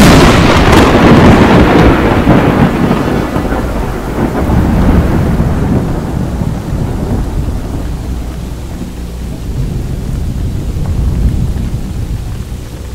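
Thunder in a heavy rainstorm: a loud rumble right at the start that slowly fades over several seconds, with steady heavy rain underneath throughout.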